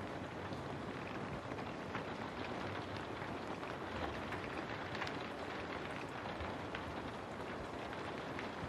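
Steady rain falling, a continuous even hiss with scattered single drops ticking through it.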